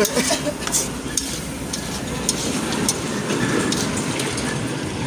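Chicken pieces sizzling as they are stir-fried in a metal kadai, with a metal spatula scraping and clicking against the pan as it stirs.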